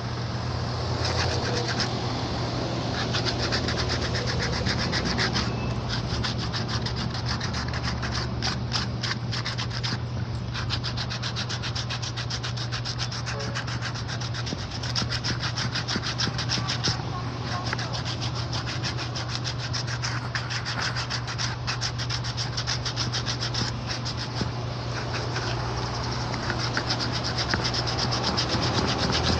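An electric motor hums steadily while a shoe sole is ground or buffed against a spinning wheel, giving a dense, rapid scratching and rubbing.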